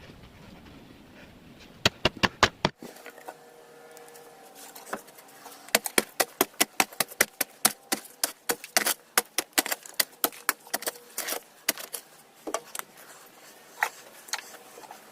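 A rapid, uneven run of sharp taps and clicks, several a second, thickest in the middle with quieter gaps.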